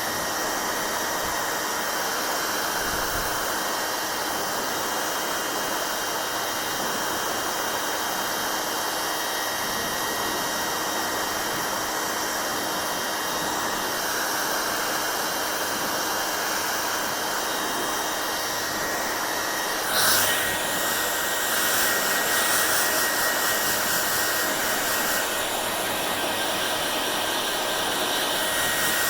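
Hair dryer blowing steadily: an even rushing of air with a faint motor whine. About twenty seconds in the sound shifts abruptly and then runs a little louder, with a clearer high whine.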